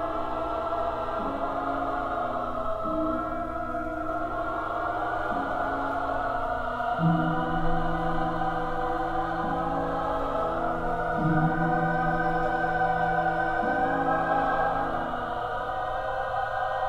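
Choral music: a choir holding slow sustained chords over low notes that shift every two seconds or so.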